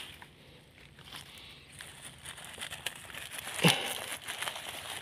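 Rustling and crinkling from walking through dense leafy brush and handling a plastic bag in a woven plastic basket, with many small crackles and one louder thump about three and a half seconds in.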